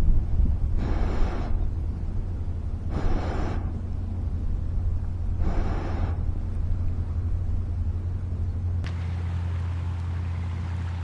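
Wind rumbling steadily on the microphone, with four short rushes of noise about two seconds apart in the first half. Near the end the sound changes abruptly to a steadier low hum.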